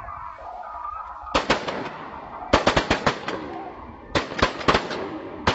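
Several shotguns firing at ducks overhead. Three quick clusters of overlapping blasts start about a second in, the middle one the longest, and a single shot follows at the end.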